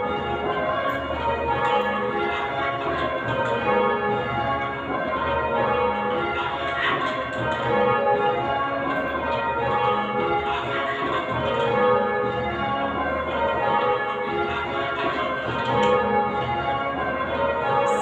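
A ring of eight Whitechapel church bells, the 10 cwt tenor in A-flat, ringing changes: an unbroken stream of overlapping bell strikes.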